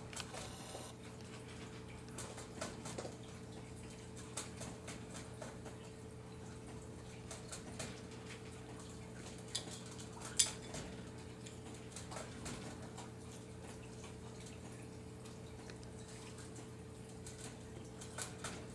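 A raccoon eating cat food from a pet bowl: irregular small crunches and clicks of food and teeth against the bowl, the sharpest about ten seconds in, over a steady low hum.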